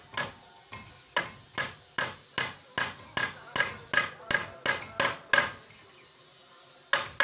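Hammer blows on the wooden frame of a plywood sofa: a quick run of sharp knocks, about three a second and speeding up, then a short pause and one more blow near the end.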